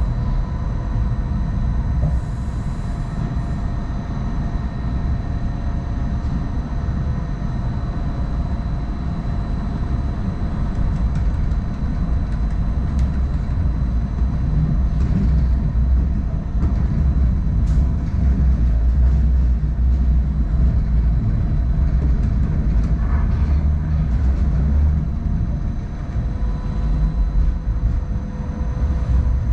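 Hong Kong Light Rail Phase I two-car train running along the track: a steady low rumble that swells in the middle, with a faint steady whine and a few light clicks.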